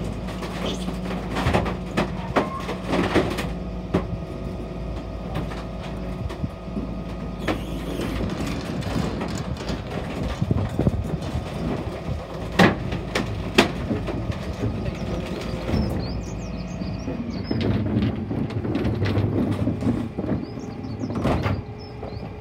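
Dennis Phoenix refuse truck running its hydraulic compaction gear, the packer crushing timber and pallets in the hopper with repeated crunching, knocks and cracks, two loud sharp cracks about halfway through. The truck's engine and hydraulic pump hum steadily underneath, changing note about a third of the way in.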